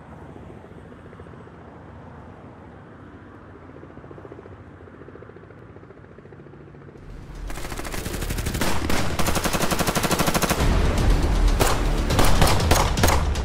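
Helicopter rotor chopping: a steady distant beating at first, then much louder and closer about seven seconds in, with fast, even blade slaps and a heavy low thrum.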